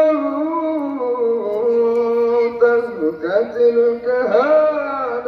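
A single voice chanting a Maulid poem in long held notes that slide between pitches, with few breaks.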